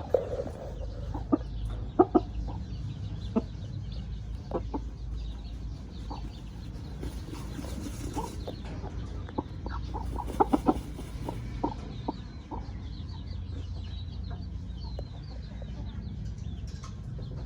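Chickens clucking in short, scattered notes, most of them in the first dozen seconds, over a steady low rumble.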